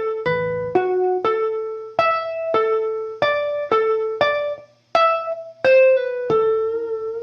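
A blues guitar lick played slowly as single clean picked notes, about two a second, with a brief break midway. It ends on a held note with vibrato.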